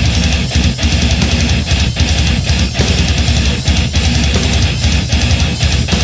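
Heavy metal recording: distorted electric guitar, bass and drum kit playing a dense, loud riff broken by many brief stops.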